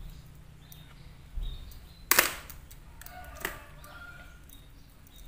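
Bench handling sounds while a small taped ferrite transformer is worked by hand with side cutters and a roll of insulating tape. There is a soft knock about a second and a half in, a sharp click about two seconds in, which is the loudest sound, and a lighter click about a second later.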